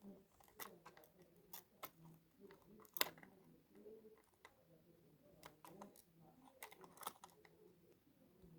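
Faint, irregular clicks and light taps of small hard parts being handled, with one sharper click about three seconds in, over faint voices in the background.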